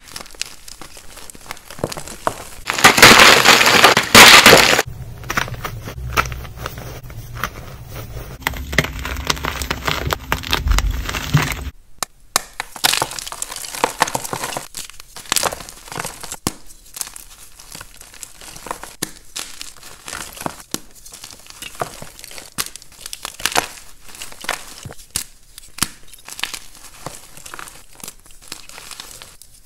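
Blocks of pearly gym chalk crushed in the palms and crumbled between the fingers, a dry crunching and crackling. The loudest crush comes a few seconds in, and after it many small, rapid crackles as the powder and fragments are squeezed.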